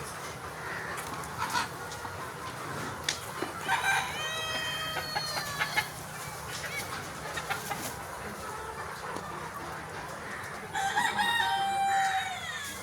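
Rooster crowing twice, each crow about two seconds long, about four seconds in and again near the end, among clucking chickens.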